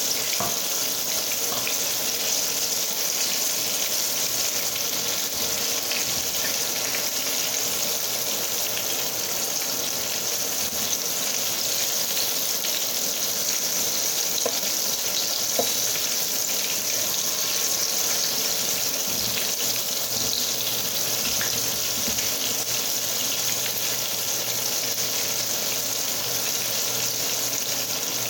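Flour-coated chicken pieces shallow-frying in oil in a frying pan: a steady sizzle, with a few faint clicks here and there.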